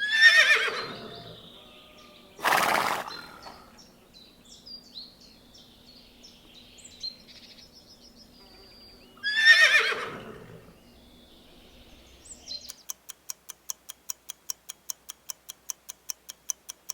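A horse whinnying twice, each call falling in pitch, with a short noisy burst between them and faint high chirps behind. In the last few seconds a rapid, even ticking takes over, about five ticks a second.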